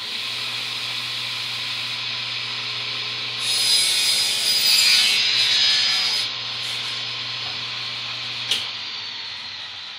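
Table saw with an 80-tooth blade running with a steady motor hum, then ripping a melamine-faced board for about three seconds, louder and hissier during the cut. Near the end a sharp click, after which the blade's whine falls as it spins down.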